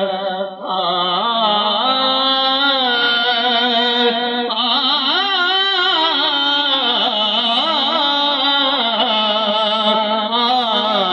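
A man singing a naat through a microphone, in long, drawn-out, ornamented notes that glide up and down, with a short breath about half a second in.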